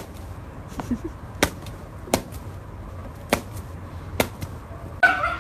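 About five sharp knocks at irregular intervals over a low steady hum, with a short pitched sound near the end.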